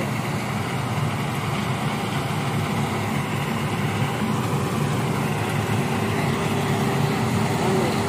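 Fiatagri 3650 combine harvester running under load as it cuts and threshes rice: a steady engine and machinery drone, growing slightly louder toward the end as the machine comes closer.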